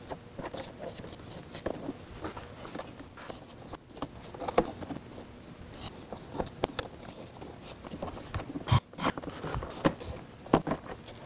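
Dashboard panel of a Can-Am Spyder RT being pushed back into its fairing: irregular clicks, taps and rubbing as it is worked into place, with a few sharper knocks in the last few seconds.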